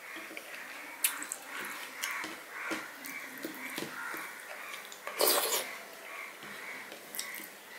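Fingers mixing rice with dal on a steel plate: soft, repeated wet squelches and light scraping on the metal, with a sharp click about a second in. About five seconds in comes a short, loud rush of breath.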